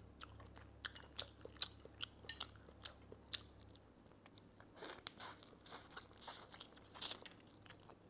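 Close-up eating sounds of steamed mud crab: a string of sharp cracks and crunches as the shell is broken apart by hand, then denser chewing and smacking about five seconds in.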